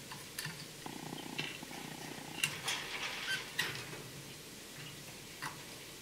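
Canaries moving about a wire cage: sharp clicks and flutters with short call notes, most of them close together around the middle. Under them a low purr-like rumble runs from about a second in to about four and a half seconds.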